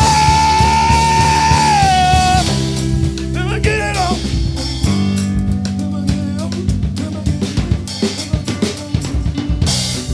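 Live rock band playing: drum kit with snare and cymbals over electric guitar and keyboard. It opens on a long held high note that slides down about two seconds in.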